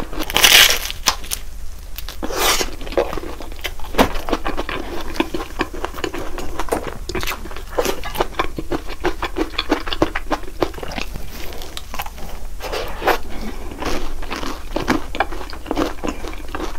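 Close-miked eating of a crisp croffle (croissant waffle) topped with whipped cream: a steady run of crackly crunching and chewing mouth sounds, with two louder crunches in the first three seconds.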